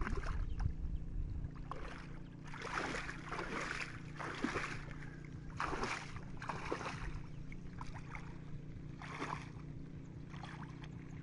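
Muddy water sloshing and swishing in short bursts as a person wades through a shallow flooded ditch, hauling a fishing net line, over a steady low hum.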